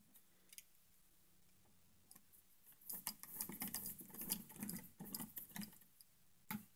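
Faint small clicks and scratches of a screwdriver turning the screws of a plastic light-switch cover plate, starting about three seconds in and running for a couple of seconds.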